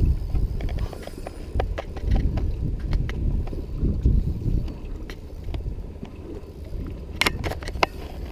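Wind buffeting the microphone and waves lapping against a wooden boat's hull, with scattered sharp clicks and a cluster of knocks near the end.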